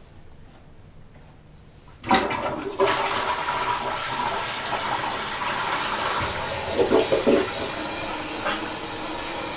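A corded handheld appliance switches on about two seconds in and runs steadily with a loud rushing hiss.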